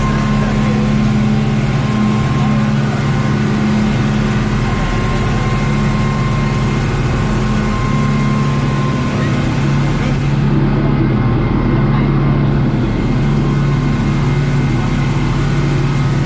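Speedboat engines running steadily at a constant pitch, with rushing water and wind noise underneath.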